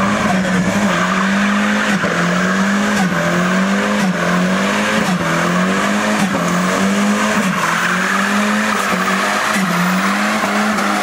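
Rear-wheel-drive Volvo estate doing a burnout. Its rear tyres spin and squeal on the tarmac without a break, while the engine, held at high revs, rises and falls in pitch about once a second.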